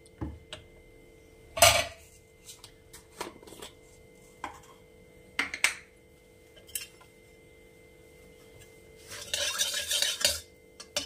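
Metal utensils clinking and knocking against a metal kadai a few separate times, the loudest about two seconds in. Near the end a metal spatula scrapes around the pan for about a second, spreading mustard oil.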